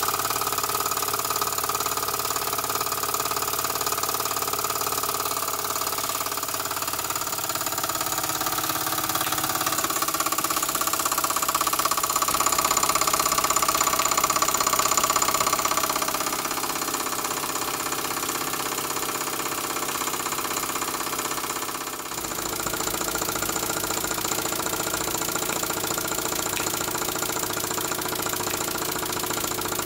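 KMV SD01 vertical toy steam engine running steadily on live steam under load, driving a model fan through a spring belt: a fast, even mechanical whirr. It swells a little about a third of the way in and changes character after a brief dip past the middle.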